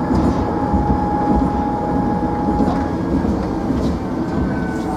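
Steady running noise of a tram heard from inside as it travels along the track: a dense low rumble of wheels on rail, with a thin steady whine that fades out about four seconds in.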